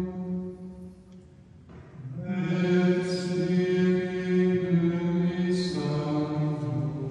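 Chanted singing: a voice holds long, steady notes, breaks off for about a second early on, then resumes the chant with a few hissing consonants.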